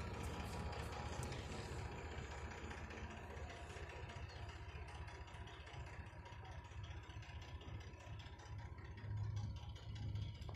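Steady low rumble, with light clattering and rattling as a laser-level transmitter and its metal tripod are handled.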